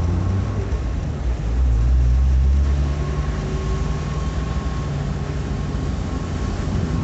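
Car driving in the rain, heard from inside the cabin: a steady low rumble of engine and tyres with a faint engine hum.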